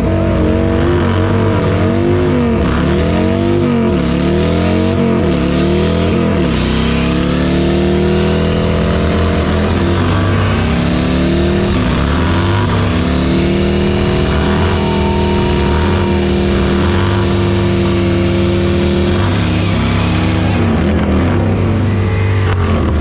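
Touring motorcycle engines doing a burnout: revved up and down in quick blips for the first few seconds, then held at high revs with the rear tyres spinning on the pad, easing off near the end.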